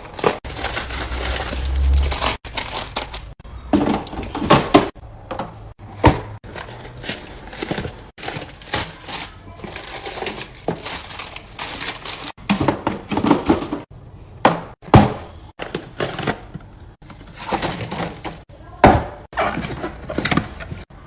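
Repeated knocks, thunks and clatter of food containers being handled and set down while a refrigerator is filled, some louder knocks standing out, broken by abrupt cuts.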